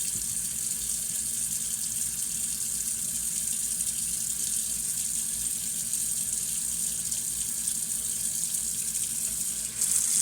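Waterfall rushing steadily, a constant hiss of falling water. Near the end it dips for a moment and returns slightly louder.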